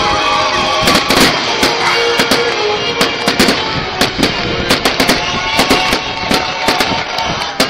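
Aerial fireworks bursting in quick succession: sharp bangs and crackle, several every couple of seconds, with music playing underneath.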